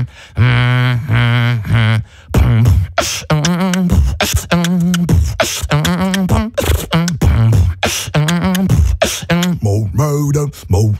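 Beatboxing into a studio microphone: for the first two seconds long hummed bass notes, then from about two seconds in a quick rhythm of sharp mouth-made drum hits between short hummed bass notes.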